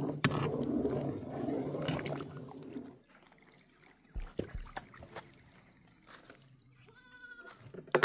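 Goat bleating loudly, a long call that stops about three seconds in, followed by quiet with a short, higher call near the end.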